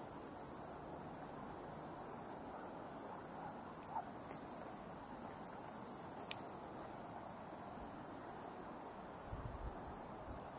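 Steady high-pitched insect chorus, with a faint hiss of background air beneath it.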